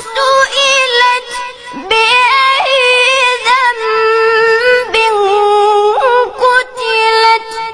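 A boy's high voice in melodic, mujawwad-style Quran recitation, holding long notes with quick ornamental turns and a few short breaths between phrases.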